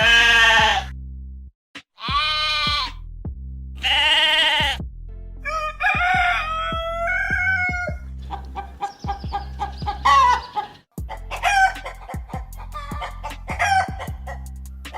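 Three wavering bleats from a goat or sheep, about two seconds apart, then a rooster crowing and hens clucking in short repeated calls, over background music with a steady bass.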